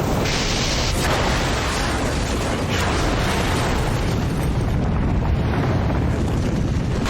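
Explosion and fire: a loud, continuous deep rumble with surges of hissing noise, the first just after the start and others about one and three seconds in.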